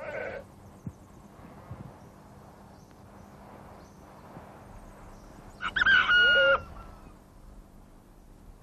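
A rooster crows once, loudly, about six seconds in, its call held and then dropping in pitch at the end. A shorter call comes right at the start, over a faint steady background.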